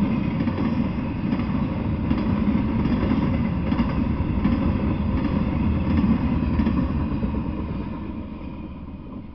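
Intermodal freight train cars carrying highway trailers rolling past: a steady rumble of steel wheels on rail with repeated clicks. The sound fades away over the last couple of seconds as the end of the train passes.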